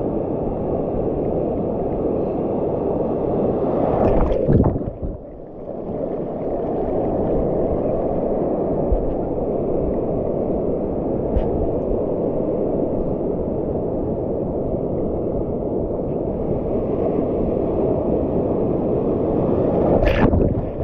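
Steady rush and churn of sea water, surging louder about four seconds in and again near the end.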